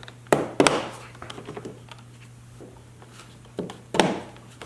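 Plastic side mirrors being pushed and snapped into a ride-on toy truck's plastic body: sharp plastic clicks and knocks, two close together near the start and two more near the end.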